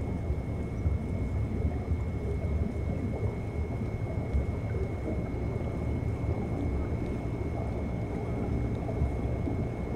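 Underwater ambience picked up by a fixed reef camera: a steady low rumble of moving seawater, with a thin steady high whine that cuts off near the end.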